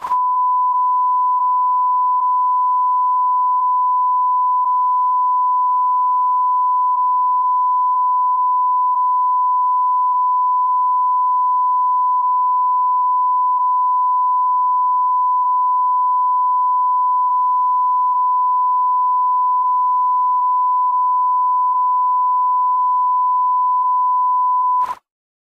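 A continuous electronic beep tone, one pure steady pitch held without a break, that cuts off suddenly near the end.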